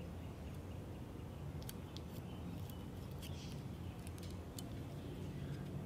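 Faint, scattered small metallic clicks from a steel piston ring being fitted onto a piston with ring expander pliers, over a low steady hum.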